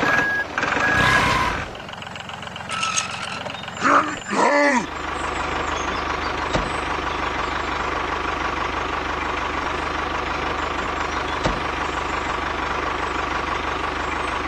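Reversing beeps in the first second, a few short irregular sounds, then from about five seconds in a steady engine-like drone with a fast low pulse, as from a mini tractor running.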